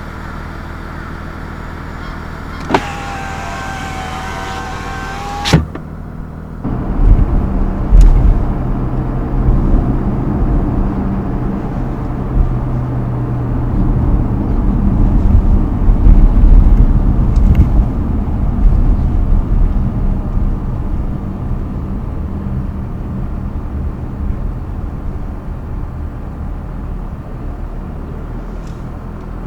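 Mazda CX-60's 3.3-litre inline-six diesel running at idle, a short electronic tone and a click about three to five seconds in, then the car pulls away and accelerates, the engine and road rumble building to a peak mid-way and slowly easing off.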